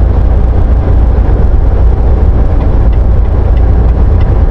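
Semi truck driving at highway speed, heard from inside the cab: a steady low engine drone mixed with tyre and road noise. Faint regular ticks come in during the second half.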